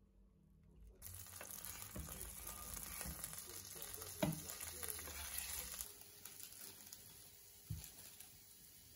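Sliced onions dropped into hot oil in a frying pan, sizzling. The sizzle starts suddenly about a second in and fades about six seconds in, with a sharp knock about four seconds in.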